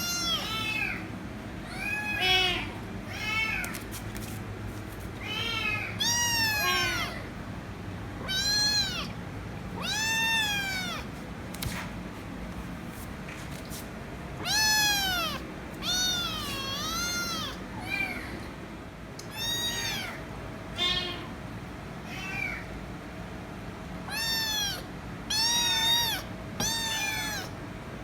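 Kitten meowing loudly and repeatedly, a high-pitched meow every second or two, each rising and falling in pitch.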